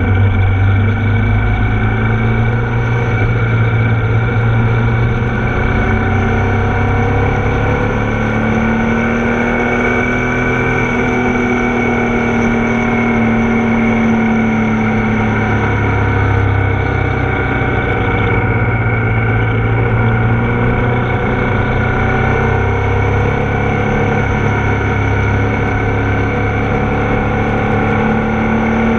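Ducati Multistrada motorcycle engine heard from onboard while riding. The engine note rises and falls gently with the throttle through bends, over steady wind and road noise.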